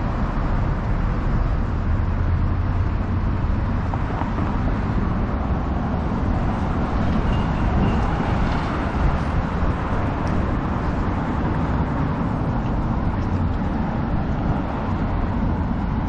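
Steady city street traffic, a continuous low rumble of passing vehicles with no single event standing out.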